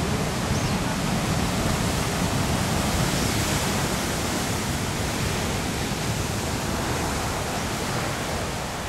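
Heavy ocean surf breaking continuously on a rocky lava shoreline, a steady loud rush of water with foam washing up over the rubble beach.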